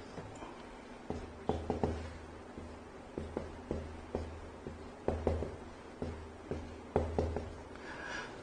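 Hand-writing sounds while a graph is plotted: clusters of short taps and knocks of a pen or marker on the writing surface, coming in several bursts with pauses between.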